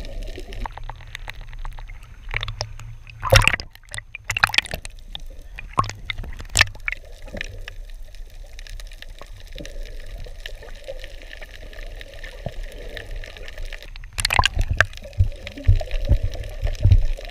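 Water sloshing and gurgling around the microphone, with a few sudden louder splashes.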